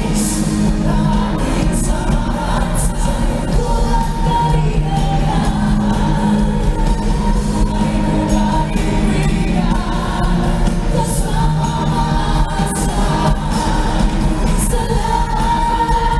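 Live pop song sung by three singers, two men and a woman, singing together into handheld microphones over backing music, heard through an arena's sound system. The voices hold long notes, with a steady, heavy low end beneath.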